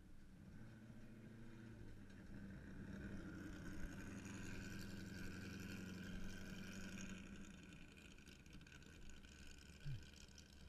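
Distant sand rail dune buggy engine driving past, growing louder over the first few seconds and then fading away, with a short low thump near the end.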